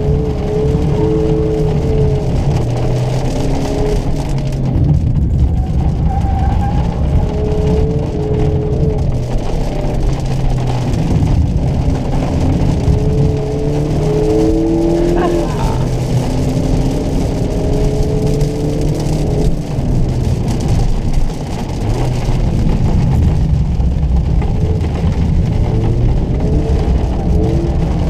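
Mazda MX-5 Miata RF's four-cylinder engine heard from inside the cabin, its revs climbing and dropping again and again as the car is driven through bends on a wet road.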